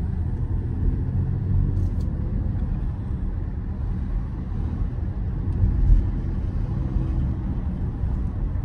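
Mercedes-AMG GLE 53 on the move, heard from inside the cabin: a steady low rumble of its turbocharged inline-six engine and road noise. There is one brief louder low bump about six seconds in.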